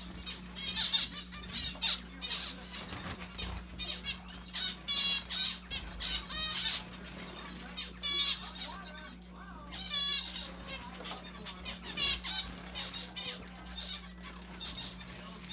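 Zebra finches calling: a rapid series of short, high chirps, with a few longer wavering calls mixed in.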